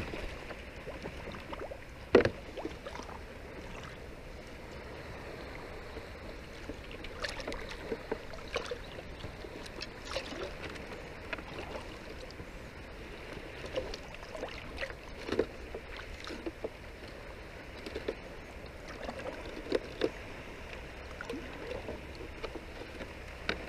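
A set net being hauled in by hand from shallow water and piled into a plastic tub: water dripping and splashing off the mesh, with scattered light knocks and a sharp thump about two seconds in.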